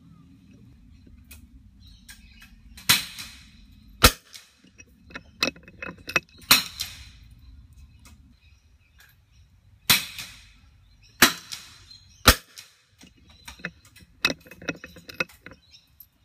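.22LR rimfire rifle shots: about half a dozen sharp, irregularly spaced reports, some with a short ringing echo, and smaller cracks and clicks between them. A steady low rumble lies under the first half.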